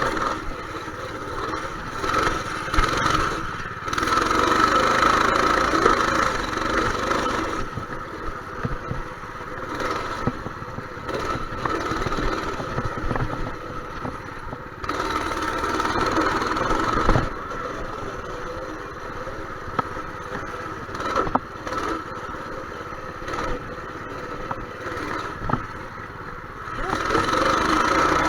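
Dirt bike engine running under load, revving up and easing off again and again in surges.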